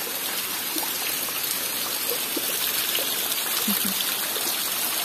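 Steady rain with rainwater running and trickling, and scattered drips and splashes.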